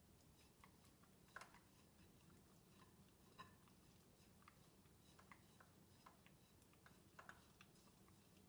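Faint, irregular wet clicks of a Schnoodle licking food off plates in a dishwasher rack, with a few slightly louder clicks scattered through.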